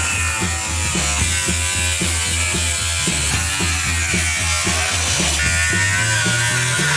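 Background music with a bass line stepping between notes over a quick, steady beat.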